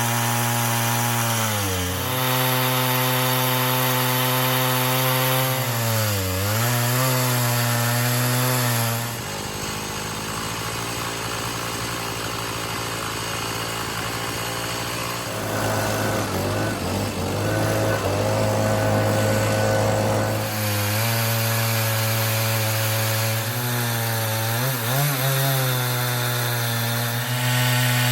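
Chainsaw on a chainsaw mill ripping lengthwise through a pine log at full throttle, the engine note sagging briefly a couple of times as the bar takes load. For about ten seconds in the middle the steady engine tone gives way to a quieter, rougher noise before the saw note returns.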